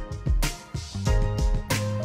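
Background music with a steady drum beat, a deep bass and held chords.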